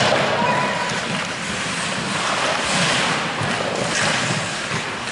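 Ice hockey rink noise during play: skates scraping and carving on the ice, a steady hiss that swells about halfway through.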